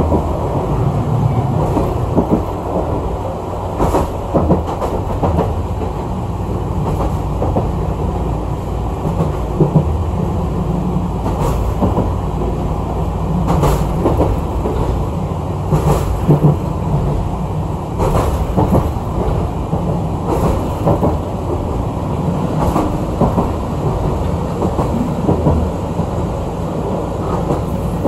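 Chikuho Electric Railway 3000-series electric train running along the line, heard from inside the car. A steady low running rumble with sharp wheel clicks over rail joints every couple of seconds.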